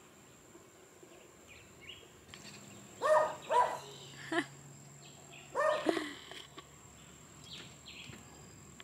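A dog barking, about five barks in two groups, one about three seconds in and one about six seconds in, over a quiet outdoor background.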